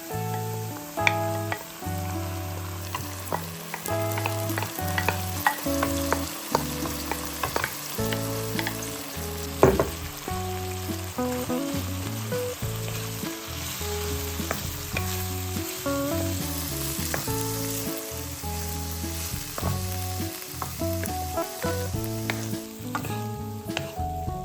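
Food sizzling in a frying pan, with frequent short taps and scrapes of a utensil stirring it, over background music.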